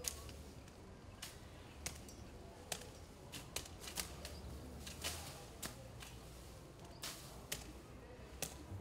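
Machete strokes slashing through tall grass and weeds: a string of sharp, irregularly spaced swishes and chops, sometimes several a second.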